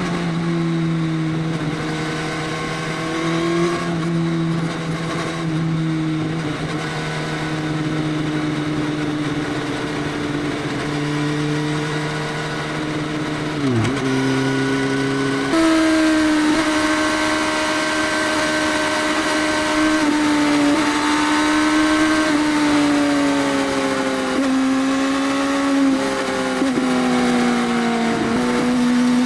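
Motorcycle with an Arrow full exhaust system and no dB killer, running under way at steady revs. Its pitch holds, then dips and steps at gear changes: once about 14 s in, and several times in the second half. A sudden jump to a louder, higher note comes partway through.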